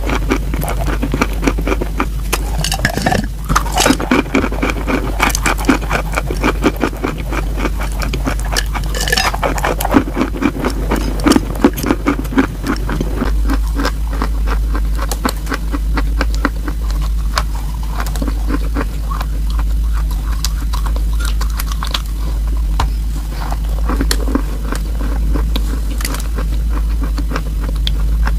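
Chalk being bitten and chewed close to the microphone: a dense, continuous run of dry crunches and crackles, with sharper louder bites here and there.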